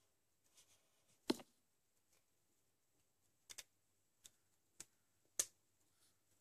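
Felt-tip markers being handled while drawing: a marker capped and set down, and another picked up and uncapped, giving about six sharp plastic clicks, the loudest about a second in and about five seconds in.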